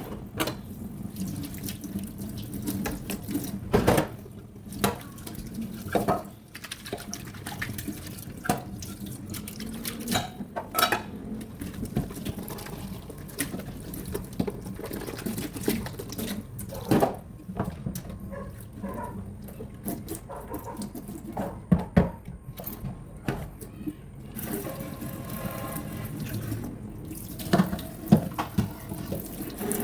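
Water running from a tap into a sink during washing, with frequent knocks and clinks of things being handled.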